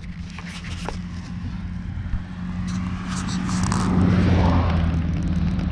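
A motor vehicle's engine hum that grows steadily louder over the first few seconds, with light rustles and clicks of leaf litter being handled.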